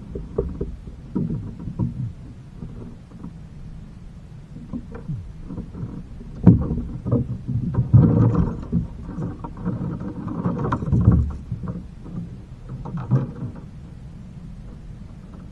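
Irregular knocks, bumps and rustling of a small boat's hull as the angler handles the line, the just-caught bluegill and gear. There is a sharp knock about six and a half seconds in, with busier stretches of bumping around eight and again around eleven seconds in.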